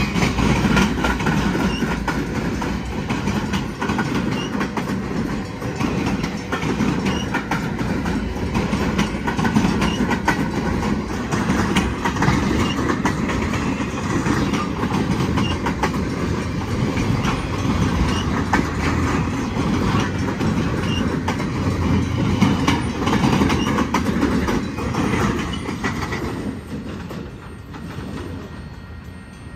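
Freight train of empty flatcars rolling past, its steel wheels clicking and clattering over the rails. The sound falls away about 26 seconds in as the last car goes by.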